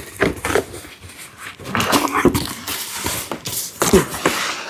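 Cardboard box being opened by hand: flaps and packing rustling, with a few knocks and a short squeak near the end.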